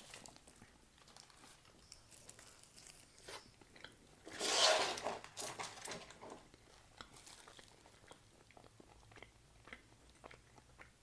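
Close-up eating sounds: a person biting into a shawarma wrap and chewing it, with small wet crackles and clicks. One louder bite comes about four and a half seconds in.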